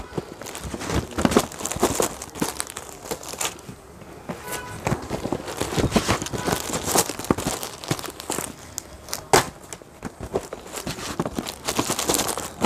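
Clear plastic covers on boxed sarees crinkling and rustling as the boxes are handled and laid out, in a stream of irregular crackles.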